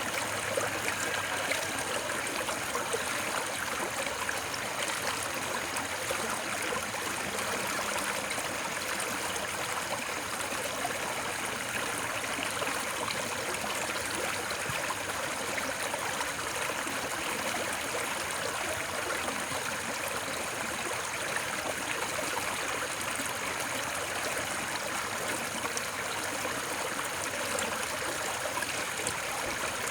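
Running water flowing steadily, an even rushing and trickling with no breaks or changes, used as white noise for sleep.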